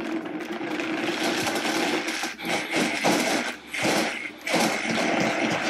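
Countertop blender running, grinding frozen pineapple chunks with pineapple sherbet and juice; a loud, rough, uneven whir that dips briefly twice in the second half.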